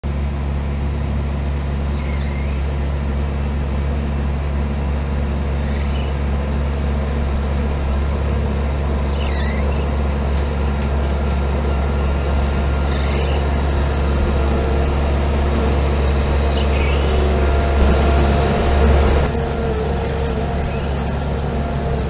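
Farm tractor's diesel engine running steadily as it pulls a cable-ploughing rig, growing louder as it draws near and peaking about 18 to 19 seconds in. A faint short squeak repeats every three to four seconds.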